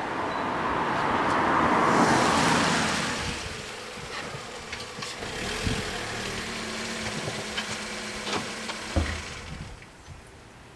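A car passes close by, its engine and tyre noise swelling to a peak about two seconds in and fading by three seconds, then a car engine idles steadily. A single thump comes about nine seconds in.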